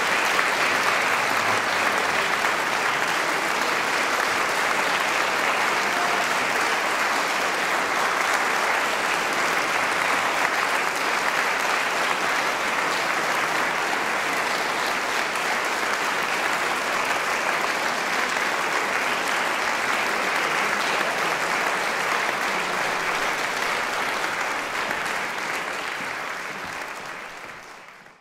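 Concert audience applauding steadily, fading out over the last few seconds.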